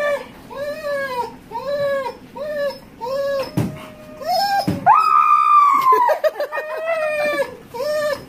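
A large husky-type dog howling and whining in protest at being brushed, not from pain. It makes a string of short, arching calls, about two a second, with one longer, higher call a little past the middle.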